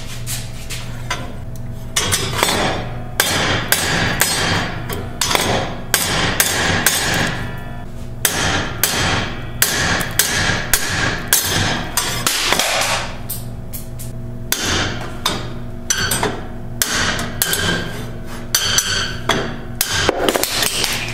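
Hammer blows on a steel rod knocking the rear axle bearing out of a Ford 8.8 axle housing from the inside. The sharp metal strikes start about two seconds in and repeat one or two a second, until the bearing is driven out of its bore.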